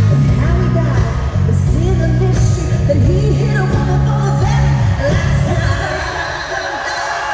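Live country-pop band with a woman singing lead, heard through a phone recording in a large arena. The low bass drops away briefly near the end.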